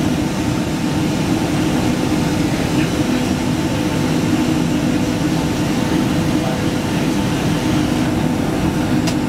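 Steady cabin noise of a Boeing 767-200ER climbing after takeoff, heard from a window seat over the wing: jet engines at climb power and rushing air, an even roar with a steady low hum.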